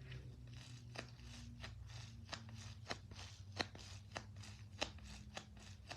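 Hands squeezing and handling a squishy toy: soft crinkling with sharp clicks roughly twice a second, a few of them louder.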